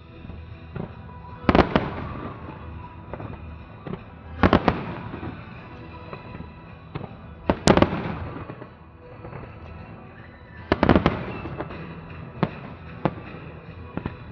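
Fireworks shells bursting in groups of several sharp bangs, a group about every three seconds, with a few single bangs between them.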